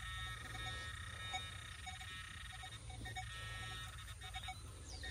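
Faint, steady chorus of high calls from small creatures in the field, with soft scuffs of loose soil being worked by hand about three seconds in and near the end.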